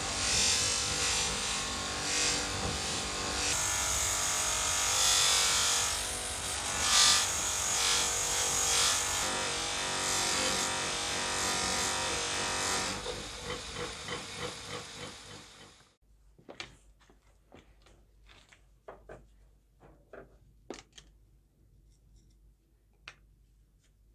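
Bench grinder running with the steel head of a leather craft hammer pressed against its spinning wheel for polishing: a steady motor hum under a harsh rubbing hiss. About thirteen seconds in the hiss stops and the grinder winds down, followed by a few light clicks and taps as the hammer is handled.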